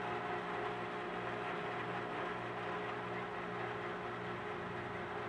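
A steady low hum with several fixed tones, unchanging throughout.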